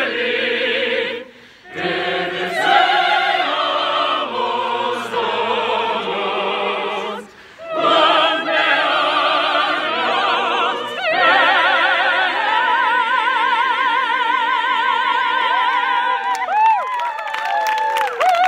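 A group of opera singers sings a birthday song together in full operatic voice with strong vibrato. It builds to a long held final note that breaks off near the end.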